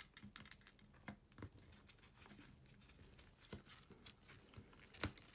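Near silence with faint scattered taps and clicks of small phone parts being handled. A sharp click near the end is the new battery's connector snapping onto the iPhone 5's logic board.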